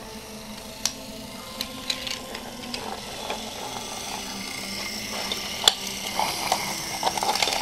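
Small toy train motor and gears whirring from about three seconds in, over scattered clicks and clacks of toy engines being handled on wooden track.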